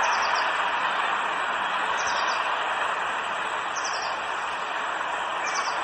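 A steady hiss of background noise, with a small bird's quick call of three or four high notes repeating about every two seconds.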